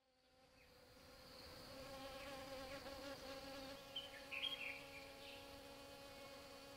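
A bee buzzing steadily at the flowers, fading in over the first couple of seconds, with a few faint high chirps about four seconds in.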